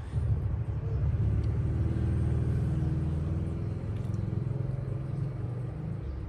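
A motor running with a low, steady rumble and hum, swelling about a second in.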